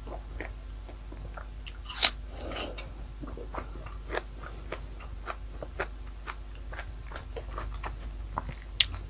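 Close-miked chewing of a mouthful of rice and pork, with many small sharp clicks from the mouth and a louder click about two seconds in.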